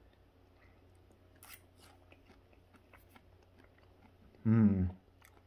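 A person quietly chewing a forkful of crispy pan-fried croaker, with faint soft clicks, then a short vocal sound near the end.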